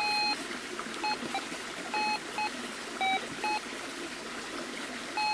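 Minelab Gold Monster metal detector giving a string of short, irregular beeps, one of them lower in pitch. They are false signals from graphite in the ground, which sets it off everywhere. A stream trickles underneath.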